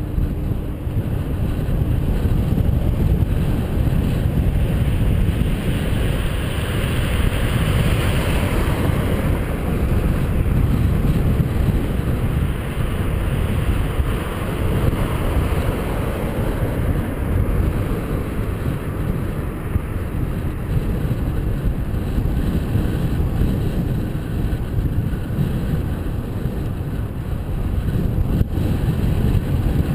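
Wind buffeting the microphone of a camera on a moving bicycle, a steady low rumble, with a swell of brighter hiss around seven to nine seconds in.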